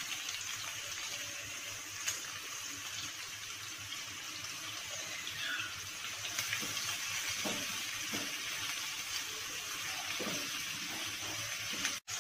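Sliced onions sizzling steadily in hot oil in a nonstick kadai, with a few soft scrapes and knocks of a silicone spatula stirring them in the second half.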